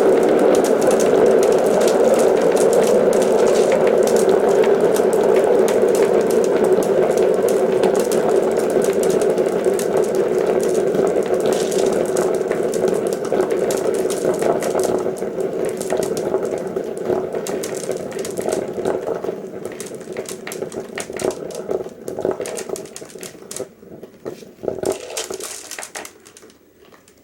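Many glass marbles rolling and clattering together through a marble run track, a dense rolling rattle of countless small clicks. It thins out and fades over the second half, leaving scattered single clicks near the end.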